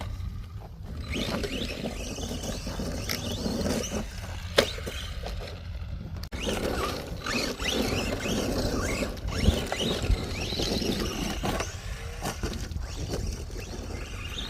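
ARRMA Vortex RC car's electric motor whining up in short rising bursts as it is driven over dirt and rubble, with the noise of its tyres on the ground and a few sharp knocks from impacts or landings.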